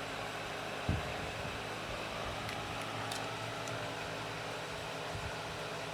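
Metal lathe running steadily with an even machine hum while a part is turned down to diameter, with a single light knock about a second in.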